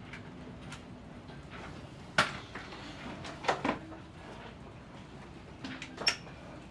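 Wooden cabinet panel being opened and handled: a sharp knock about two seconds in, a quick pair of clicks a second later, and another click near the end.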